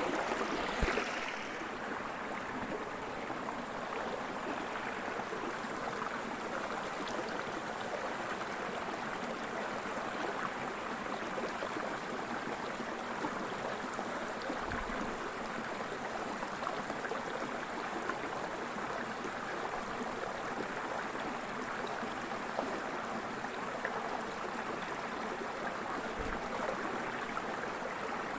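Small woodland creek running full after a night of rain, a steady, even rush and babble of water.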